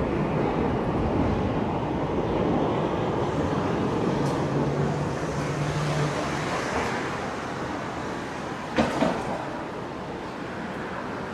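Downtown street noise: the rumble of a passing train easing into traffic noise, with a low steady hum for about two seconds mid-way and two sharp clicks a little before the end.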